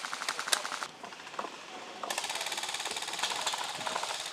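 Airsoft electric guns firing on full auto, each shot a rapid mechanical clatter of the gearbox cycling. A short burst comes in the first second and a longer one starts about two seconds in.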